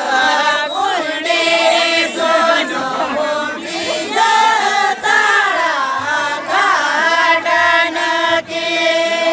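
A group of voices singing a Santali lagney song together, in long phrases whose melody rises and falls.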